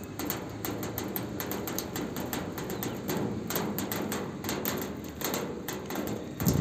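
Rain falling on a zinc roof: a dense, steady patter of many drops striking metal and standing water. A dull low thump sounds near the end.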